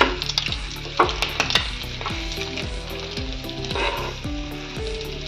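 Stuffed paratha sizzling in butter and oil on a flat griddle pan (tawa) as it is turned over with a metal spatula. Sharp clicks of the spatula against the pan come at the start and again about a second in.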